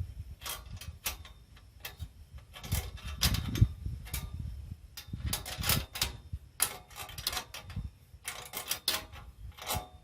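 A wrench clicking and clinking on the metal bolts of the mast's pole clamps as they are tightened, in irregular sharp clicks, some in quick clusters.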